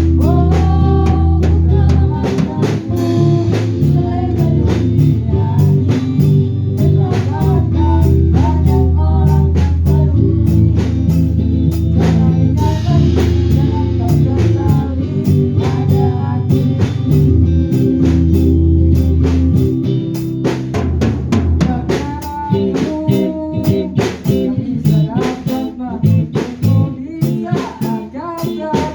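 Music with a full drum kit, bass and guitar, and a melody line sliding above it; the drums go on in regular strokes.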